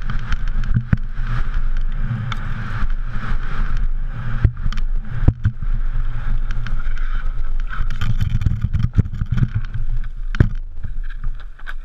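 Steady rumble of a BMX bike racing round a track, heard from a camera on the rider, with frequent sharp knocks and rattles as the bike runs over the bumps.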